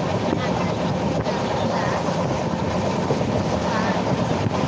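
Passenger train running steadily, heard from inside the coach: a continuous rumble of wheels and rails with wind noise.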